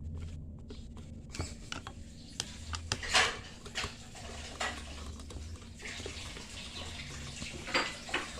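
Blades of a small 12-volt ceiling fan being handled and fitted onto the hub: scattered clicks and brief scrapes of parts knocking and sliding together, the loudest about three seconds in.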